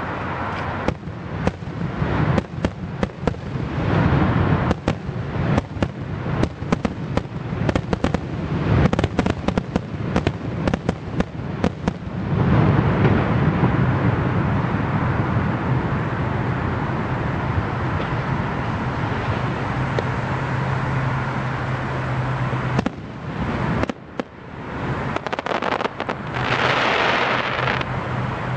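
Fireworks going off: rapid volleys of sharp cracks and bangs for about twelve seconds, then a steadier rumbling stretch with a low hum, and a few more bangs near the end.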